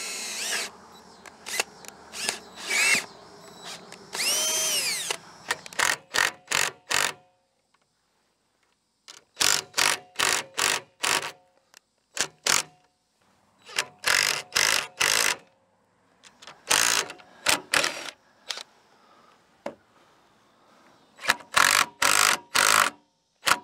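Power drill boring a hole through PVC pipe, run in many short trigger bursts with brief pauses between, the motor whining up and back down in places.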